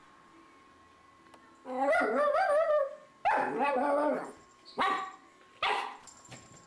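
Cairn terrier barking at a cat in play: two long barks of wavering pitch, then two short sharp barks about a second apart.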